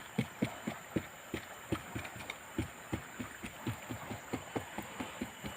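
Rapid soft thumps in an even rhythm, about four a second.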